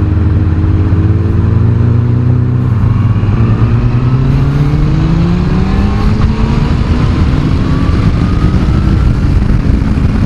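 Honda CBF1000's inline-four engine pulling as the motorcycle accelerates: its pitch holds steady, then climbs, shifts at a gear change about six seconds in, and climbs again. Wind and road rush sound over the engine.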